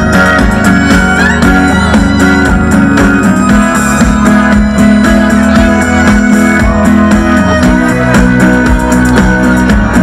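Live band music: acoustic guitar, bass guitar and violin playing together over a steady beat.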